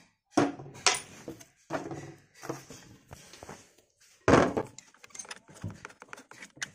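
Metal drill-chuck parts and tools clinking and knocking on a wooden workbench, with the loudest knock about four seconds in. It ends in a run of light, rapid clicks as a hex key goes into a drill chuck.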